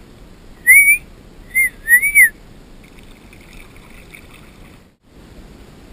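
Three loud, short whistled notes in quick succession, each rising and then falling in pitch.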